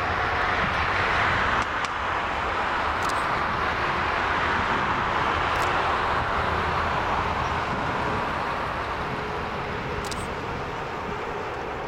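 Airbus A380-800's four Rolls-Royce Trent 900 turbofans running at low taxi power as the jet turns to line up for takeoff: a steady rushing hiss with a faint hum underneath, easing slightly in the last few seconds. A few faint short clicks.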